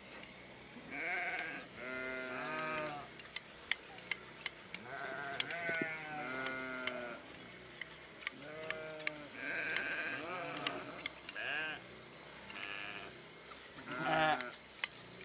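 Sheep bleating again and again with quavering calls, over the sharp repeated snips of hand blade shears cutting through fleece.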